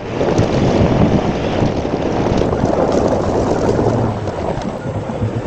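Vehicle driving along a dirt track, with engine and tyre noise under wind rushing over the bonnet-mounted microphone. The noise is dense and steady, easing a little near the end.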